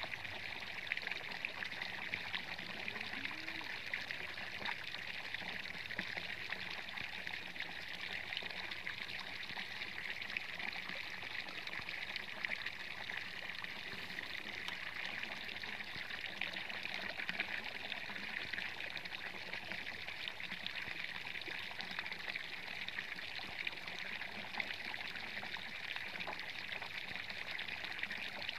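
Water pouring in a steady stream from the open end of a PVC pipe and splashing into the ditch water below, an even, unbroken splashing.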